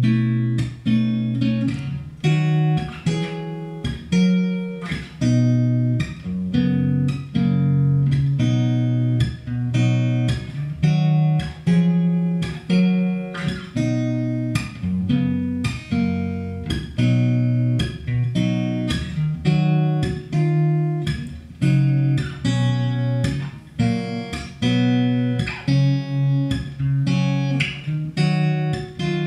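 Steel-string cutaway acoustic guitar fingerpicked solo, an instrumental: a steady run of sharply plucked notes, with low bass notes ringing under a higher melody.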